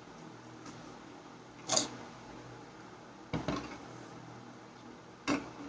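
Panipuri eating: three short, sharp sounds as hollow puri shells are cracked open with the fingers, dipped in bowls of pani and eaten, with a steady low hum underneath.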